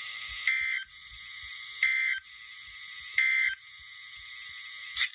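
Three short bursts of EAS/SAME digital data tones from a weather radio, about 1.4 s apart, each a harsh buzz lasting about a third of a second, over a steady radio hiss: the end-of-message codes that close the broadcast warning.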